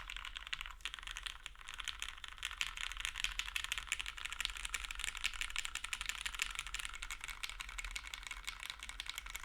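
Fast, continuous typing on a UTD 356 Mini mechanical keyboard: lubed and filmed Cherry MX Hyperglide Black linear switches in an aluminum plate, gummy O-ring mounted, under GMK keycaps. A dense stream of keystrokes with a brief pause about a second in. The bottom-out sounds a little hollow on the recording, which the typist puts down to the recording and the deskmat.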